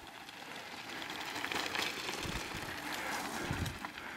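Mountain bike tyres crunching and crackling over loose gravel and rock as a rider passes close by, swelling to a peak midway and fading, with two dull low thumps.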